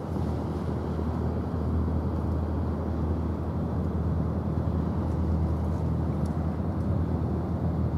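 Steady low drone of a cruise ship's engines and machinery as it sails past, an even hum with no sudden sounds.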